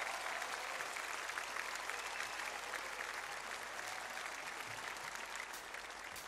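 Concert audience applauding, the applause slowly dying down.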